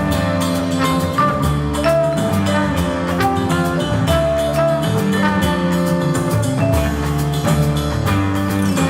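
Live jazz quintet of drums, double bass, vibraphone, guitar and trombone playing, with ringing vibraphone notes over bass and drums.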